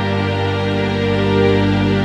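Cello holding a G minor chord (G, B-flat, D) as one steady, sustained drone, the notes unchanging.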